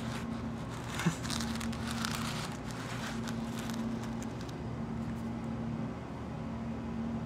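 Paper rustling and crinkling as a hand-drawn paper globe on a stick is handled, with one sharp click about a second in. The rustling dies away after about four and a half seconds, leaving a steady low hum.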